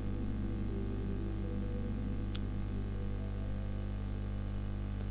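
A steady low hum with faint held tones above it, even throughout, and one faint tick about two and a half seconds in.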